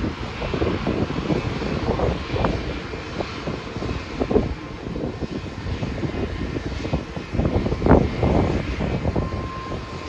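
Airbus A220's Pratt & Whitney PW1500G geared turbofan engines running as the jet rolls down the runway, a steady jet rumble mixed with gusty wind buffeting the microphone.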